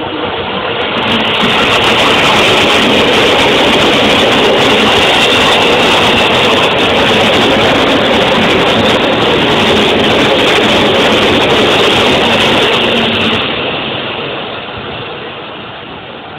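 Electric commuter train running along the station platform: loud, steady wheel and motor noise that builds over the first two seconds, holds for about ten, and fades away near the end.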